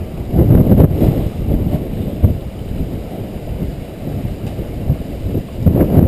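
Typhoon wind buffeting the camera microphone: a loud, gusty low rumble that swells about a second in and again near the end.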